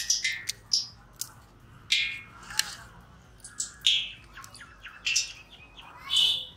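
Wet squelching and slapping of hands working a marinade-coated whole chicken in a metal bowl, in short irregular bursts.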